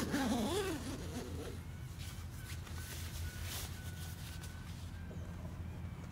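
A short wavering cry that rises and falls in pitch over about the first second and a half, then a steady low hum.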